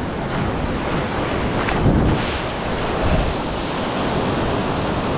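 Ocean surf washing and swirling close to the microphone, with wind buffeting the microphone. The water surges louder about two seconds in and again about three seconds in.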